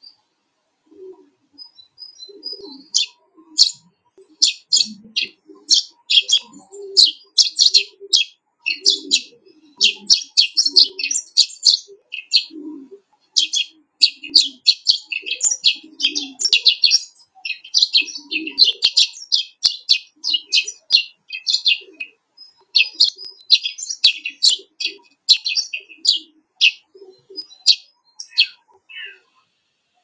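Sparrows chirping in a fast, busy run of short notes, with fainter low calls underneath. The chirping stops about a second before the end.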